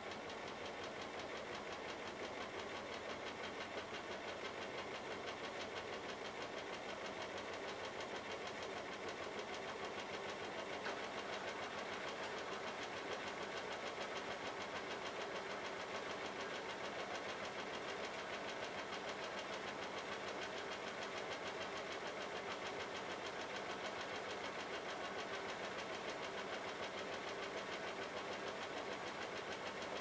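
Bosch Logixx WAS32461 washing machine running with its drum turning the load: a steady mechanical whir with a fast, even pulse.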